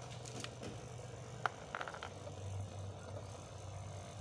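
A few light clicks and taps of small parts being handled on a disassembled heat gun, the sharpest about a second and a half in, over a steady low hum.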